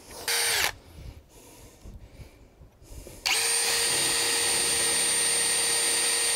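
Milwaukee M18 cordless drill giving a short burst, then from about three seconds in running steadily at full speed, boring a pilot hole down through the boat's deck into the sealing panel beneath.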